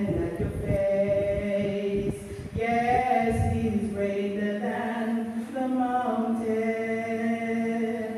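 A small group of voices singing a worship song together in long held notes.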